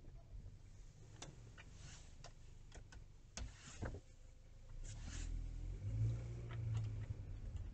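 Sound of a car manoeuvring slowly, heard inside the cabin through a dashcam's microphone: scattered faint clicks, then a low rumble that swells from about five seconds in.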